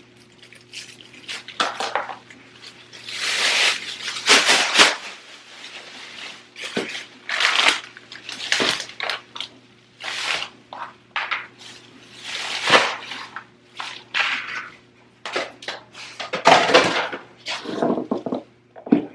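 Food containers and packaging clattering and rustling as they are handled and moved, in a run of irregular short bursts, over a faint steady low hum.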